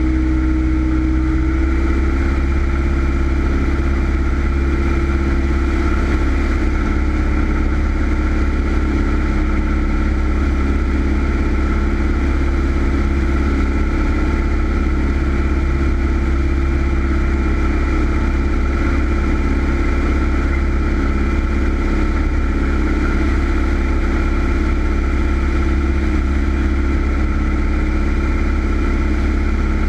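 Single-engine Cessna's piston engine and propeller droning steadily in cruise flight. The engine note steps up slightly about two seconds in.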